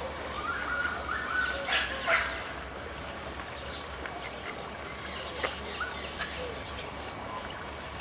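Birds giving a few short calls and chirps, loudest about two seconds in and again briefly in the second half, over a steady outdoor background with a faint high pulsing hiss.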